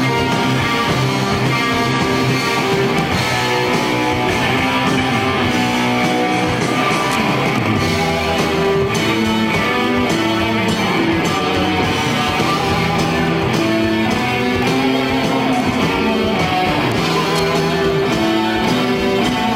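Rock band playing live, electric guitar to the fore, in an instrumental passage without vocals.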